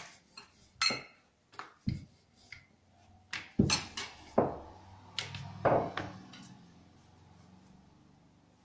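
A wooden rolling pin knocking and clacking against a granite countertop while wheat-dough rounds are rolled out: a string of sharp, irregular knocks over the first six seconds, then only faint room noise.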